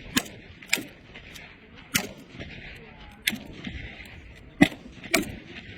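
Rifle shots on a firing range: about six sharp cracks at irregular intervals, two of them close together near the end.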